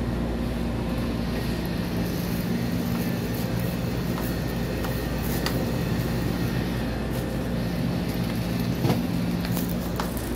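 Refrigerated drink coolers humming: a steady low mechanical hum made of several constant tones, with a few light clicks.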